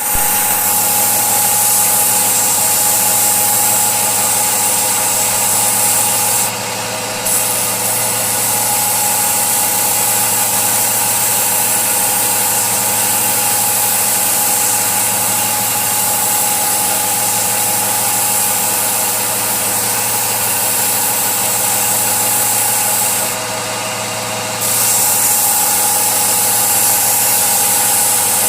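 A woodworking power tool running steadily with a constant hum and hiss, dropping in level briefly twice.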